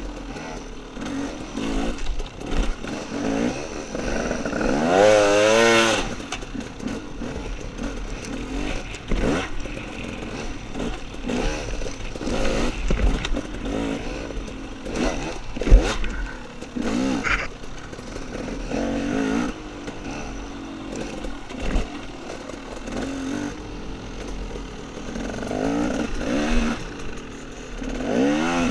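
Off-road dirt bike engine revving up and down over and over as it is ridden along a trail, with one long, loud rev about five seconds in. A sharp knock about sixteen seconds in is the loudest moment, and smaller clatters come in between.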